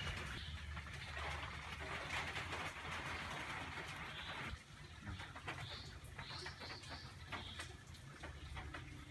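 Birds calling over a steady hiss that cuts off suddenly about four and a half seconds in; the short high calls stand out more after the hiss stops.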